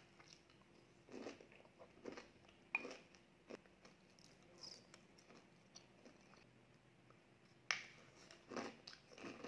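A person chewing and crunching food taken from a spoon, close to the microphone, in soft irregular bursts. Two sharp clicks stand out, one about a third of the way in and one near the end.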